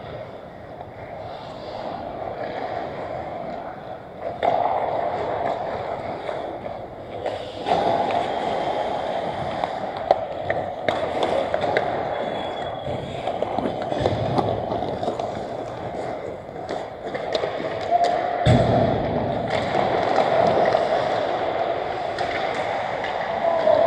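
Ice hockey skates scraping and carving on the ice, with scattered sharp clacks of sticks and puck and a dull thump near the end.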